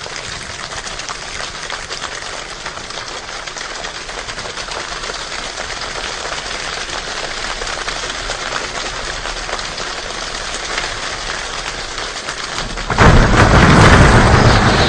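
Imitated rainstorm: a dense patter like rain that slowly grows louder, then a sudden much louder burst about 13 seconds in, like a downpour or thunder.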